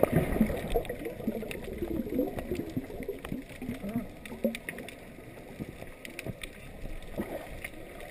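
Muffled underwater sound heard through a camera's waterproof housing: gurgling bubbles and water movement with short wavering blips, busiest in the first half, and scattered sharp clicks.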